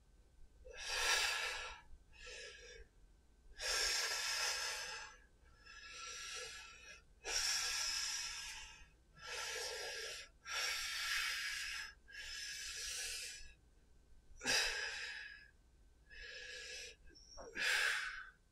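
A man breathing hard from exertion during a clubbell workout: about eleven loud, separate breaths in and out, one every second or two.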